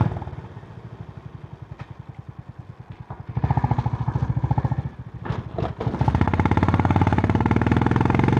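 Honda CB350 H'ness 348 cc air-cooled single-cylinder engine through its stock exhaust, with a thumpy, bassy note. It runs softly off the throttle for about three seconds, opens up, dips briefly with a couple of sharp clicks around five seconds, then pulls harder and louder from about six seconds in.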